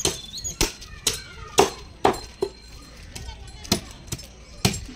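Knife blade scraping scales off a large catla fish on a wooden log block: sharp scraping strokes, about eight of them, roughly every half second. Voices in the background.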